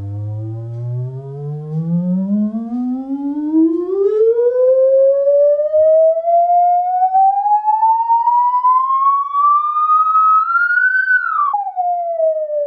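Sine-wave test sweep played through a bare Focal Polyglass cone driver running in free air. A single tone with faint overtones glides steadily up in pitch from a low hum to a high whistle, then drops sharply near the end and starts gliding down again.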